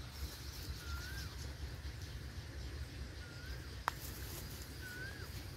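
A bird repeating a short whistled note that dips and then rises, three times about two seconds apart, over a low steady rumble. One sharp click comes about two-thirds of the way through.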